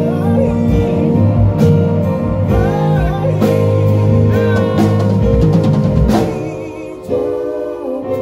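A gospel-jazz band playing live: keyboard chords, bass and a drum kit, with a voice singing over them. About six seconds in the bass drops out and the music thins and quietens, then a sharp drum hit brings it back.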